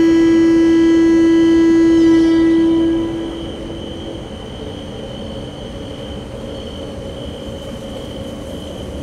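Train horn sounding one long steady note that fades out about three seconds in, leaving the quieter rumble of the train running.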